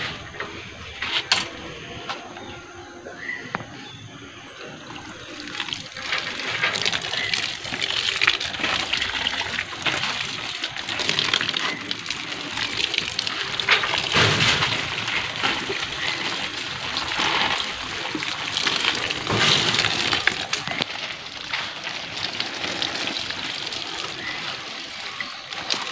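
Thin liquid slurry pouring from a plastic watering can and splashing onto the soil of potted orchids. It starts about five seconds in and swells and eases several times.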